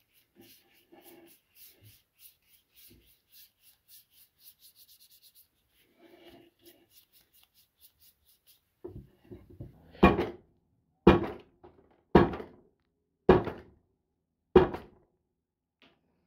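A brush dabs and strokes finish onto a wooden hammer handle with faint, quick scratchy strokes. Then a gloved hand rubs the finish into the handle: five loud rubbing strokes, about a second apart.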